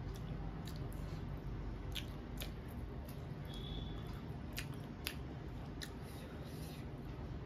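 Person eating with their fingers: chewing with scattered sharp, wet clicks and smacks of the mouth at irregular intervals, over a steady low hum.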